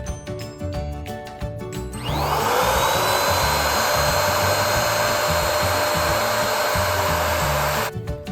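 Electric balloon pump switching on about two seconds in. Its motor tone rises quickly to a steady pitch over a loud rush of air, runs for about six seconds, then cuts off suddenly. Background music with a steady beat plays throughout.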